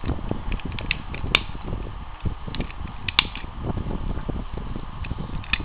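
Small plastic parts of a Hot Wheels Custom Motors toy car clicking as the wheels are snapped onto the chassis, with scattered sharp clicks, the loudest about a second in and about three seconds in, over handling noise close to the microphone.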